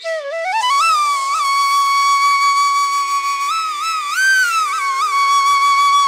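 Background music: a solo flute glides upward into a long held note, with a few bending ornaments in the middle, over a faint steady drone.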